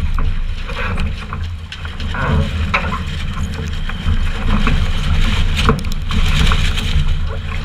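Strong wind buffeting the microphone in a steady low rumble, over water rushing and splashing along the hull of a Finn dinghy sailing hard in about 50 knots of wind, with scattered short splashes.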